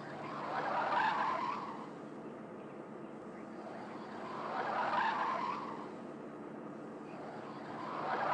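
A car engine running steadily as the car drives off, with the tyres squealing three times, each squeal swelling and fading over about a second and a half, roughly four seconds apart.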